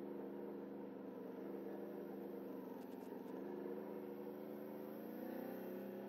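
ATV engine running at low speed, its pitch dipping slightly and then rising and holding a little higher from about halfway through.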